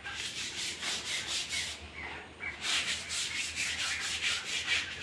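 Brush scrubbing wet, soapy concrete: quick back-and-forth strokes about four a second, pausing briefly about two seconds in before starting again.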